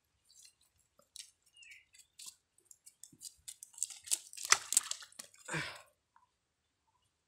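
Short wet squishes and crackles from handling small fish in mud and dry leaves, coming in scattered clicks and growing busiest about four to six seconds in, then stopping.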